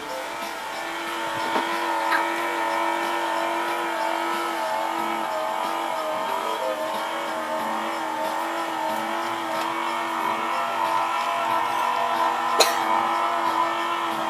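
Electric lift motor of a home-built mechanized storage bed running steadily with a hum and whine, with one sharp click near the end.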